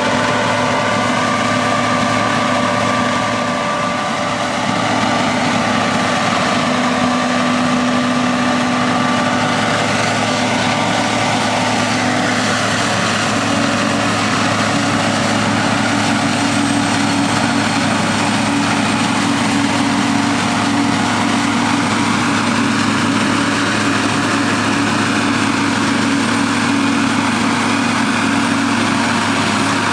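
Diesel engines of corn silage harvesting machinery running steadily, with whining tones that drift slowly up and down in pitch.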